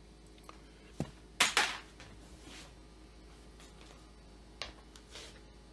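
Light metallic clicks and taps from small parts and a tool being handled against a chainsaw crankcase. There are about five of them, and the loudest is a close pair about one and a half seconds in.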